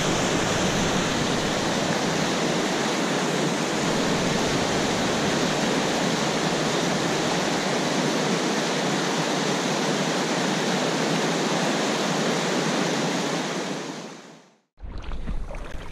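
River rapids: whitewater rushing over rocks in a steady, unbroken roar. It fades out near the end.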